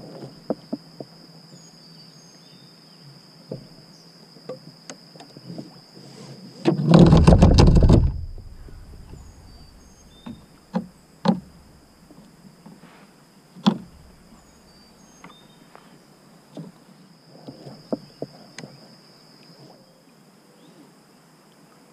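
A loud rattling clunk lasting about a second, about seven seconds in: a YakGadget manual power pole with a metal sleeve on its foot being dropped through its mount into the river, the noise carrying up through the kayak's hull. A few sharp knocks follow, over a steady insect drone.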